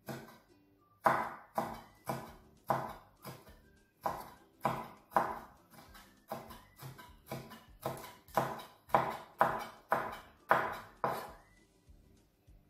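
Cleaver chopping red chili peppers on a thick round wooden cutting board: a steady run of knocks, about two a second, that stops about a second before the end.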